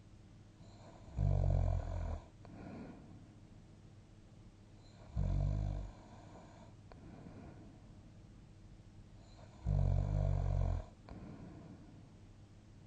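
A person asleep, snoring: three loud, deep snores about four seconds apart, each lasting about a second, with softer breathing between them.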